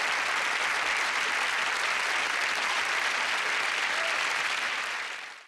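Studio audience applauding steadily, fading out near the end into sudden silence.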